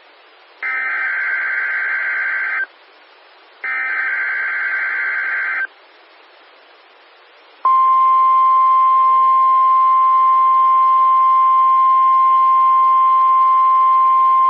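NOAA Weather Radio test tones: the last two bursts of the SAME digital header, each a buzzing data squawk about two seconds long with a short gap between, then about seven and a half seconds in the steady, single-pitch warning alarm tone starts and holds. These are the signals that switch on weather alert receivers, sent here as the weekly test.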